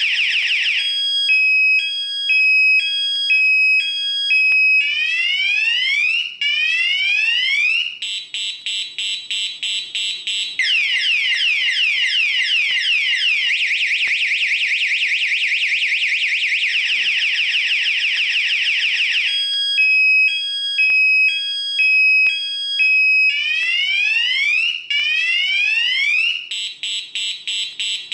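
Loud electronic security-alarm siren cycling through its tone patterns: a two-tone warble, then repeated rising whoops, then rapid beeping, then a long fast wail. The cycle starts over again near the end.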